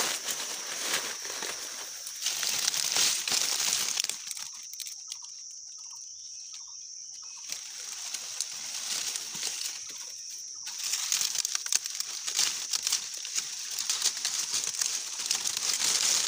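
Dry leaf litter rustling and crackling as a hand pushes through it. It goes quieter for several seconds in the middle, then the rustling starts again.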